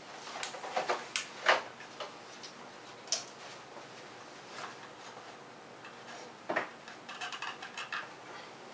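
Irregular sharp snaps a second or more apart, then a quick run of crackling near the end: a Tesla coil's spark gap firing only sporadically, barely working.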